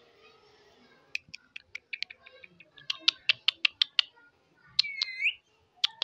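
Indian ringneck parakeet making a run of sharp beak or tongue clicks, coming faster between about three and four seconds in. A short whistled chirp rises then levels off near five seconds, and more clicks follow.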